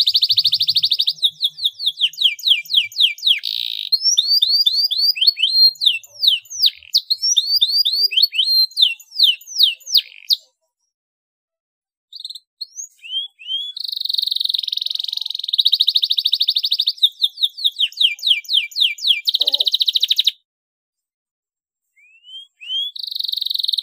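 Domestic canary singing: long buzzing rolls alternating with fast runs of repeated sweeping notes. The song breaks off twice for about two seconds, about ten seconds in and again about twenty seconds in, then starts up again.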